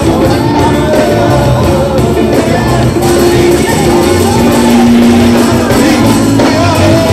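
Live band music with several voices singing a song with wavering sung lines and held notes over a steady beat.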